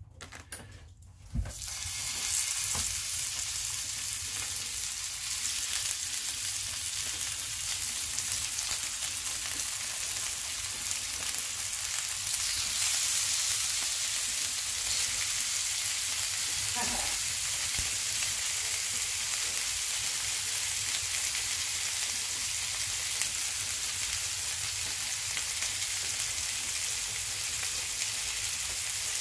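Thick slices of pork belly frying in hot oil in a pan, a steady sizzling hiss that starts suddenly about a second and a half in as the meat goes into the pan.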